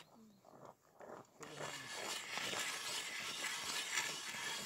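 Hand-cranked ice auger boring into lake ice, its blades scraping and crunching through the ice as the handle turns. Nearly quiet for the first second and a half, then the grinding runs on steadily.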